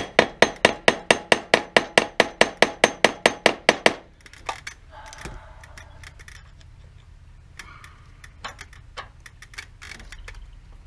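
A hammer striking metal about four to five times a second for roughly four seconds, each blow ringing, as a wheel hub is driven onto a keyed axle shaft. After that come a few scattered lighter knocks and clicks.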